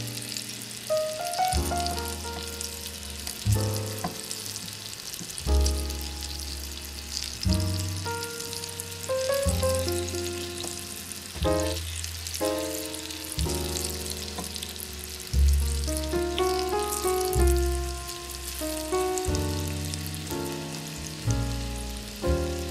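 Food frying in a miniature ceramic pot over a small candle burner, a steady crackling sizzle with many fine pops. Background music plays over it, with a bass note about every two seconds.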